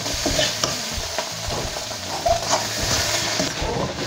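Metal spatula stirring and scraping food around a black kadhai (wok), with the food sizzling as it fries; scrapes come every half second or so over the steady sizzle.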